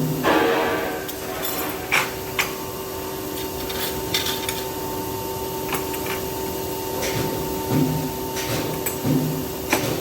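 Metal-working factory machinery running with a steady electrical hum, and sharp metallic clicks and knocks every second or two. A short scraping rush comes at the start.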